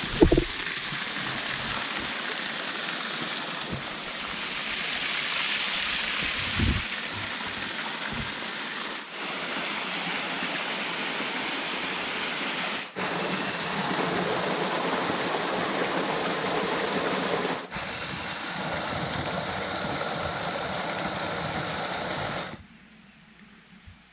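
Waterfall: a steady rush of falling water, changing in level at abrupt edits between shots and dropping away to a faint hum near the end.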